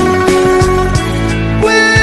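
Instrumental music with plucked guitar and a steady beat, a song's interlude between sung lines.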